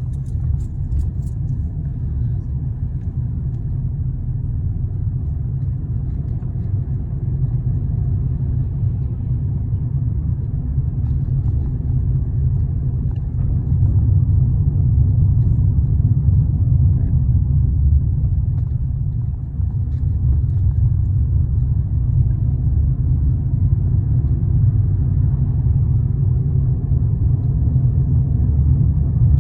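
Steady low rumble of road and engine noise inside a moving car, growing louder about halfway through.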